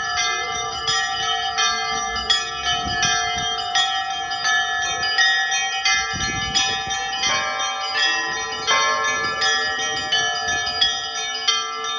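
Russian Orthodox church bells rung in a continuous peal: several bells struck in quick succession, their rapid strokes ringing over longer-sounding tones.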